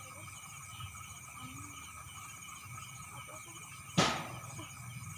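Night insect chorus: several steady, high trills, some pulsing in quick, even repeats. One sharp knock about four seconds in, the loudest sound.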